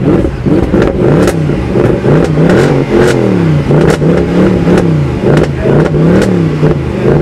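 Car engine revved in repeated quick blips, its pitch rising and falling about once a second, with a few sharp pops in between.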